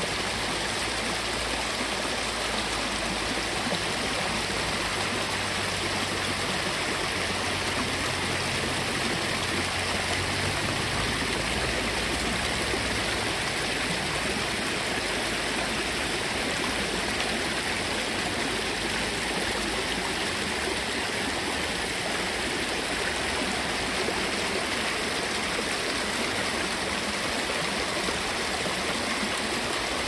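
Small waterfall cascading over mossy rocks: a steady, loud rush and splash of water.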